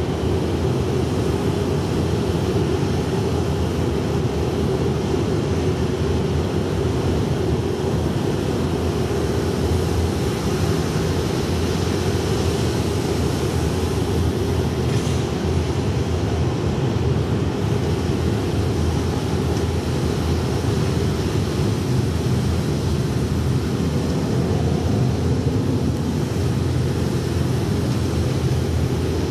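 Electronic noise drone from the performance's live sound score: a steady, dense low rumble that holds unchanged throughout.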